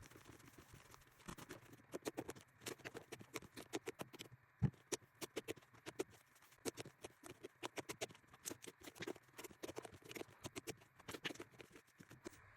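Fluffy slime being squished and pulled by hand, making a long run of quick sticky pops and clicks, about three to five a second, with one louder thump about a third of the way in.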